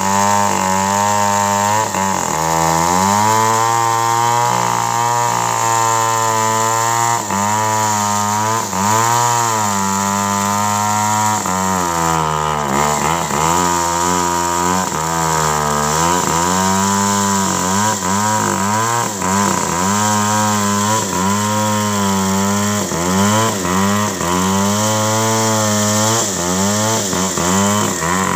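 Two-stroke chainsaw crosscutting felled teak logs. The engine revs up and falls back again and again as the throttle is worked through the cut.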